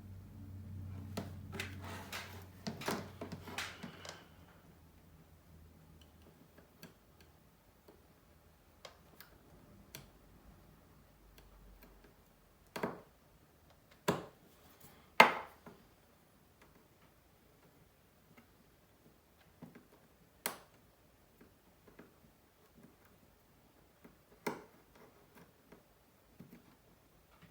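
Small sharp clicks and taps of hand tools and parts being handled during smartphone reassembly: a quick flurry over the first four seconds with a faint low hum, then single clicks every few seconds, the loudest about halfway through.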